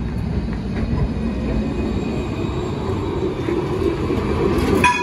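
Electric light-rail tram, a Bombardier Flexity Classic, rolling in toward the stop with a steady rumble of wheels on rails that grows louder as it nears. A brief high ringing tone sounds near the end.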